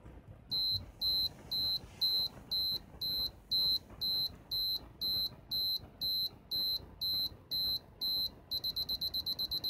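Canon EOS 5 film SLR's self-timer beeper counting down: short high beeps about twice a second, switching near the end to a rapid string of beeps that signals the shutter is about to fire.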